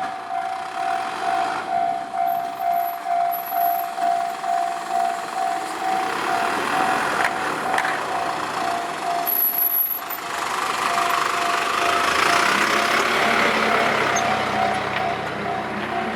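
Japanese level-crossing warning bell ringing in quick even strokes, about two and a half a second. From about ten seconds in, a train passes over the crossing, and its running noise swells up under the bell.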